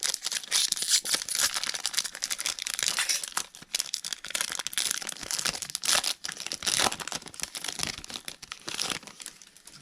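Plastic wrapping crinkling and tearing in irregular, crackly rustles as a trading-card mega box and its packs are unwrapped and ripped open by hand, dying down near the end.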